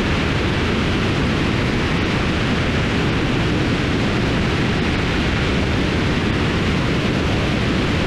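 Steady rushing wind roar from airflow over a camera mounted outside a Cessna 152 in flight, even and unchanging, with no distinct engine tone standing out.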